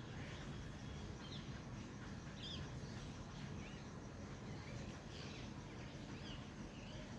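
Small birds calling in a tree, with short chirps scattered every second or so over a steady low background noise.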